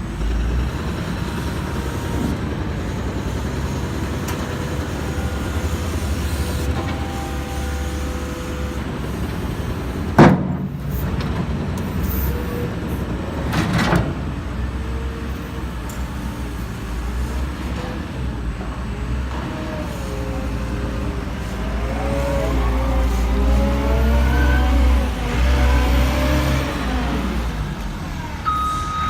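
Caterpillar 914G wheel loader's diesel engine running with a steady low rumble, with two sharp knocks about ten and fourteen seconds in. In the last third the machine's whine rises and wavers as it works, and a reversing beeper starts right at the end.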